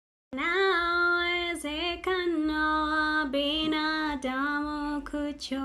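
A woman singing a Swahili worship song, holding long notes one after another.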